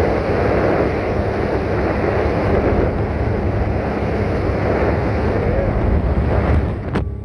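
Motorboat under way: steady engine drone beneath wind buffeting the microphone and water rushing past the hull. A sharp click near the end, after which the wind noise drops away.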